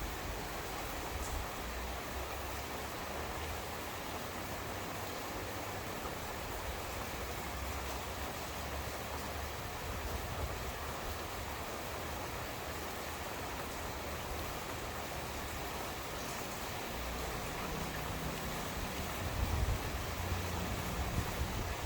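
Steady rain falling in a thunderstorm. A low rumble of thunder builds near the end.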